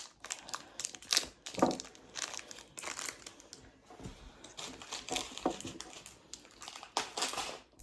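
Plastic packaging crinkling and rustling in irregular bursts as it is handled, with small clicks and taps among them.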